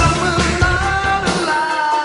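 Rock music with a sung vocal line; the bass and drums drop out in the second half, leaving the voice and higher instruments.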